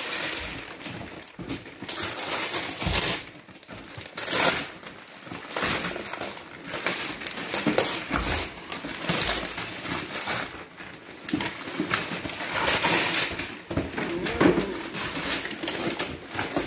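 Christmas wrapping paper being torn and crinkled as a present is unwrapped, in irregular rustling bursts.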